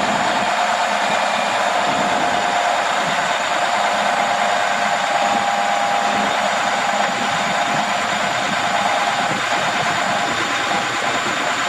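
Diesel engine of a Freightliner M2 114SD truck running steadily to drive the hydraulics of a Fassi knuckleboom crane as the boom is operated, with a faint steady whine over the engine noise.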